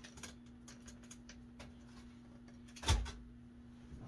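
Handling noise of someone fumbling to plug in a power cable: scattered small clicks and rustles, with one louder knock about three seconds in, over a steady low hum.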